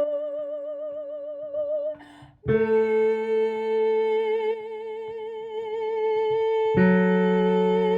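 A solo singer holds a long sung note with a wide vibrato over sustained accompaniment chords. About two seconds in there is a short break for breath, then a new, lower note is held with the same vibrato. A fresh chord enters near the end.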